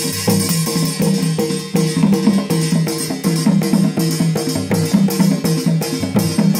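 Music with a steady, fast drum beat under a pitched melody.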